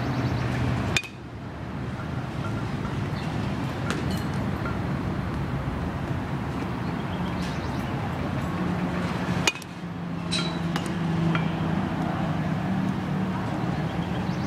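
A bat sharply striking pitched baseballs twice, about a second in and again some eight seconds later, with a few faint clicks between, over a steady low hum.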